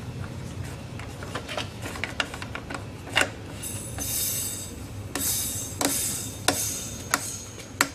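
Air compressor being set up: clicks and knocks as the pressure regulator knob is worked, with two short bursts of hissing compressed air around the middle, over a steady low hum.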